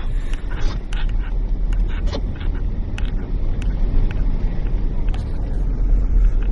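A car driving on a snow-covered road, heard from inside the cabin with the driver's window open: a steady low rumble of engine and tyres, with a few scattered light clicks.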